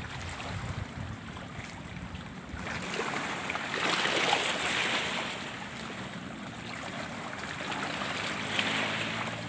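Shallow water splashing and sloshing as a person wades and lifts a wire-mesh crab trap out of the water, loudest about four seconds in; wind rumbles on the microphone at the start.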